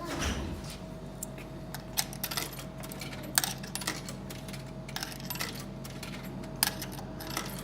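Coins being fed into a vending machine, clinking one after another as they drop inside, over a faint steady hum.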